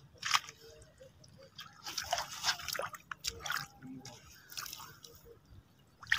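Shallow field water splashing and dripping in short irregular bursts as hands work through it, with the sharpest splash just after the start.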